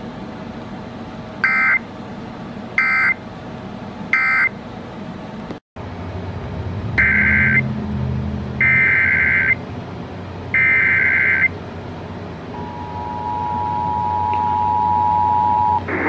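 Emergency Alert System tones from an FM radio. First come three short SAME data bursts that end one station's alert, then a brief dropout as the radio is retuned. Next come three longer SAME header bursts opening the next station's relay of a severe thunderstorm warning, and then the two-tone attention signal held for about three seconds, growing louder.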